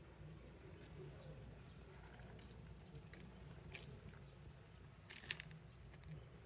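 Near silence: a faint steady background hum with a few small scattered clicks, the sharpest a quick cluster about five seconds in.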